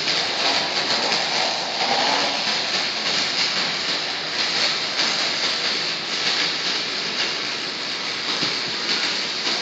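Arc-welding arc crackling and hissing steadily while welding a pipe.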